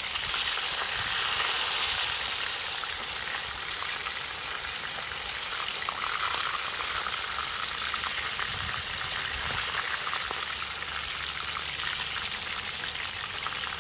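Whole Indian mackerel (bangda) sizzling and crackling steadily as they shallow-fry in hot oil in a pan.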